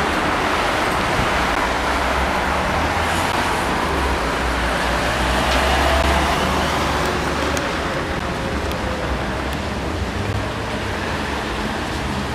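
Road traffic passing along a town street, engines and tyres going by steadily, with a low rumble swelling between about four and seven seconds in as a vehicle passes close.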